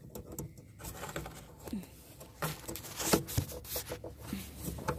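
Hands working the plastic wiring connector of a car headlamp bulb, making a scatter of small clicks and rustles; the sharpest click comes about three seconds in.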